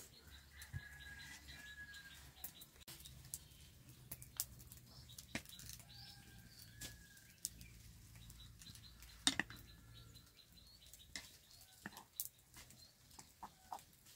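Faint bird calls: two thin whistled notes, each held for a second or so, over scattered light clicks and knocks, one sharper knock about nine seconds in.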